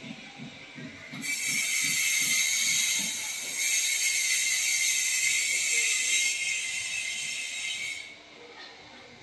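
Loud steady hissing, like air or steam escaping under pressure. It starts about a second in and cuts off sharply about eight seconds in.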